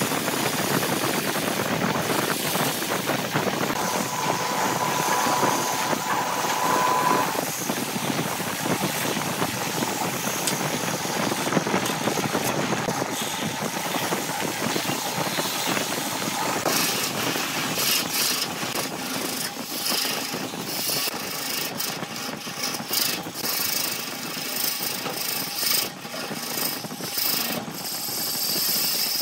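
Wood lathe spinning a grapefruit-wood vase while a hand-held turning tool cuts it, a continuous scraping hiss of wood being shaved over the machine's running noise. A brief steady whine comes in about four seconds in, and from about two-thirds of the way through the cut turns to rapid, irregular clicking.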